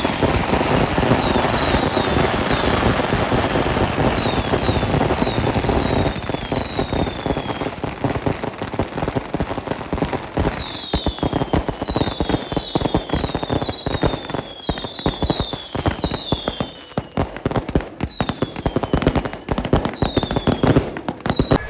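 Fireworks and firecrackers going off in a dense crackle, then as rapid separate pops from about six seconds in. Many short whistles fall in pitch over the top, several at a time.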